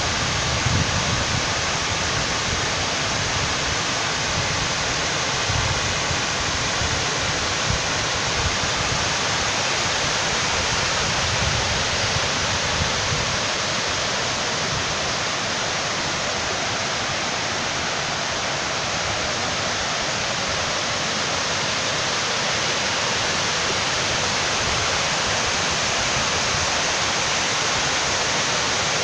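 Floodwater pouring over a curved concrete dam spillway: a steady, unbroken rush of falling water.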